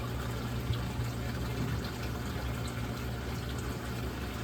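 Steady rush of circulating water with a constant low pump hum from a reef aquarium's pumps and sump, with a couple of faint clicks about a second and a half in.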